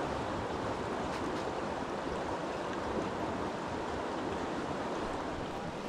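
Creek water rushing steadily, a continuous even wash.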